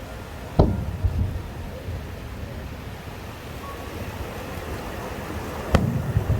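Two aerial fireworks shells bursting, each a sharp bang followed by a low rumbling echo: one about half a second in and the other near the end, over a steady background hiss.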